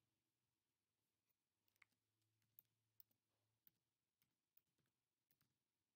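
Near silence: room tone with a dozen or so faint, scattered clicks.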